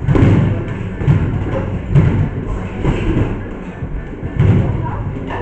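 Dull thuds from boxing sparring, gloved punches and footwork on the ring canvas, landing about once a second, over background music.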